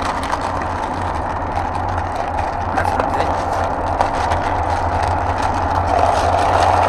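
A steady low mechanical hum with a rushing hiss over it, swelling slightly louder near the end.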